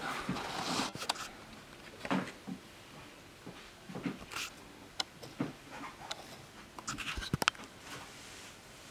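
Sheets of paper being handled, with a few soft rustles and a quick cluster of light clicks and taps about seven seconds in.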